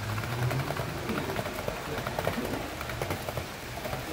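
Brass HO-gauge model trains running on metal track: a steady rattle of wheels with quick clicks over the rail joints and a low motor hum.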